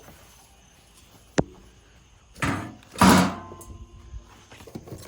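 A sharp click, then about a second later two louder clattering knocks with a brief ring: metal roof cargo rack parts being handled and fitted together during assembly.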